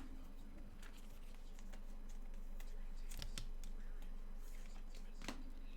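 Hands handling trading card packs and cards: soft rustles and a few light clicks and taps, two close together about three seconds in and one more near the end, over a steady low hum.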